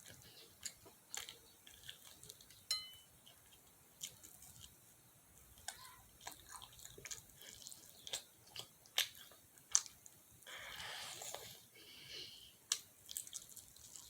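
Close-up chewing and biting on crispy fried chicken: irregular crunches and wet mouth clicks, with a short louder crunchy stretch about ten seconds in.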